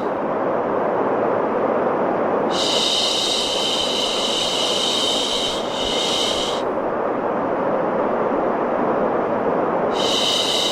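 Steady rushing white noise with a girl's long 'shhh' shushing laid over it. One shush lasts about four seconds and dips briefly near its end, and the next begins near the end.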